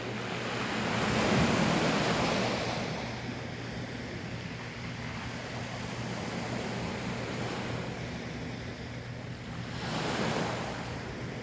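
Sea waves surging, swelling loudest about a second or two in and again near the end, with a steady low hum underneath.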